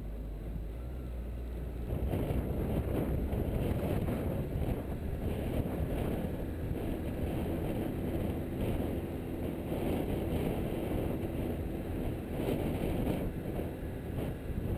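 Car driving along a paved road: a rushing mix of wind on the microphone and tyre and engine noise, growing louder about two seconds in.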